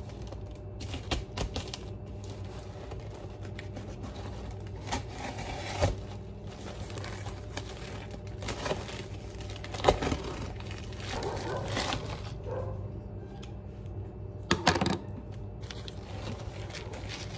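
A cardboard shipping box being opened by hand: a box cutter slitting packing tape, flaps pulled open, and paper and plastic wrapping rustling, in scattered clicks, scrapes and crinkles over a steady low hum. The sharpest knocks come about ten seconds in and again near the end.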